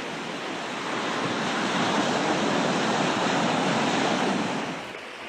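Steady rush of water with wind buffeting the microphone, swelling in the middle and dropping away near the end.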